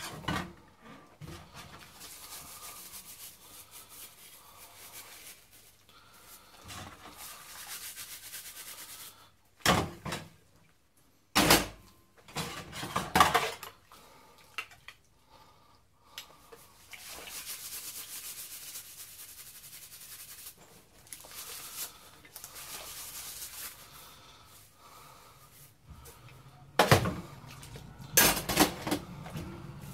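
Dishes being washed by hand at a kitchen sink: rubbing and scrubbing with stretches of steady hiss, and sharp clatters of crockery a few times, mostly around the middle and near the end.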